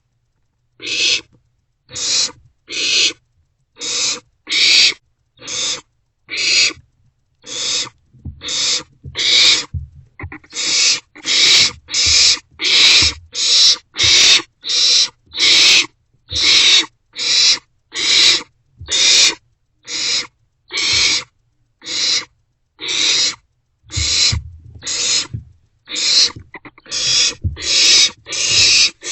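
Barn owlets giving a long series of raspy, hissing begging calls, each about half a second long, one after another at about one a second, quickening to nearly two a second after about ten seconds.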